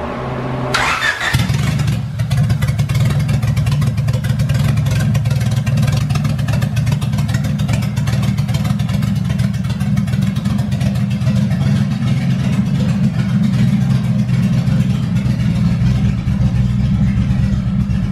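Honda H-series four-cylinder VTEC engine on open headers starting up about a second in, then running steadily and loud.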